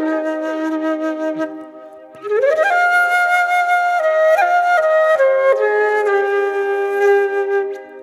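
Instrumental music: a single flute-like melody. A held note fades out about two seconds in; after a short lull, a new phrase swoops up into sustained notes that step up and down, then settles on a long lower note that fades near the end.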